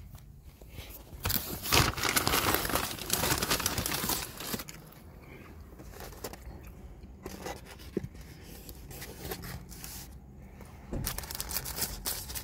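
Cardboard takeout box being opened and a paper sandwich wrapper rustling and crinkling, in two spells: from about a second in to about four and a half seconds, and again near the end.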